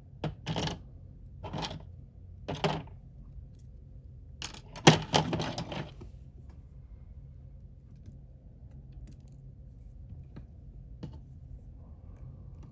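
Small metal clicks and clinks of a precision screwdriver and tiny phone screws being handled, in a handful of short bursts over the first six seconds, the loudest about five seconds in. After that only a faint steady low hum remains.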